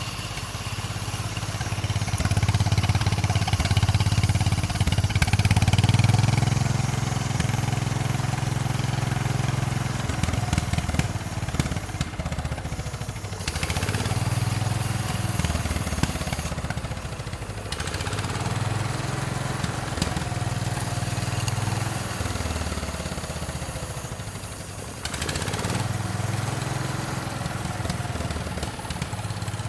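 The 1926 Fordson snow tractor's four-cylinder engine running, its sound swelling and easing off several times.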